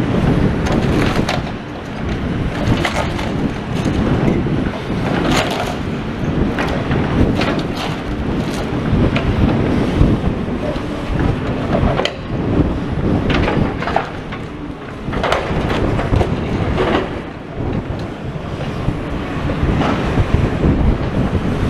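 Strong wind buffeting the microphone over a demolition excavator at work, with irregular crashes and clatter of rubble being dumped into piles.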